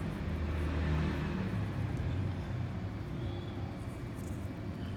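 Steady low rumble in the background, like road traffic or an idling vehicle, with no speech.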